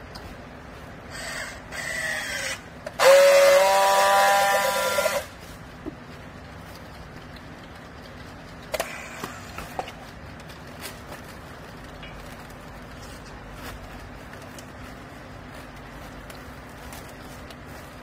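Handheld electric strapping tool working on the yellow plastic strap around a compressed clothes bale: a quieter whir about a second in, then a louder motor whine for about two seconds whose pitch rises at first and then holds. A few faint clicks follow later.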